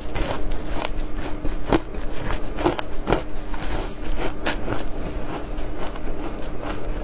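Frozen shaved ice coated in matcha powder being bitten and chewed: irregular sharp crunches and cracks, a few each second.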